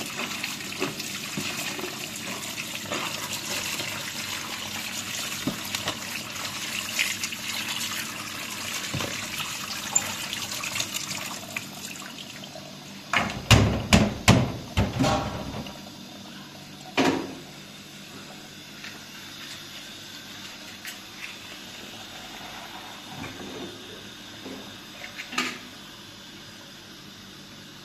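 Water running for about twelve seconds, then a quick run of loud knocks and clatter, one more knock shortly after, and a few light clicks near the end.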